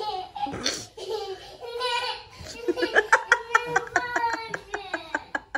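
A small child laughing: a high-pitched run of quick giggles, several a second, through the second half.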